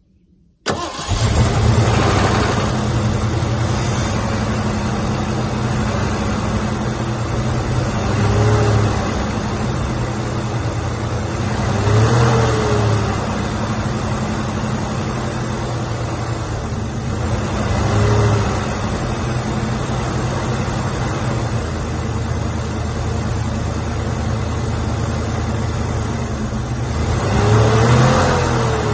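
Bulldozer's diesel engine running steadily. It swells under load every few seconds, each time with a short whine that rises and falls.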